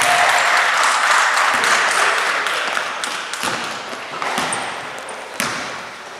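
Basketball game in an echoing sports hall. A wash of noise fades over the first few seconds, then a few sharp knocks of the ball or feet on the court follow, with a brief high squeak.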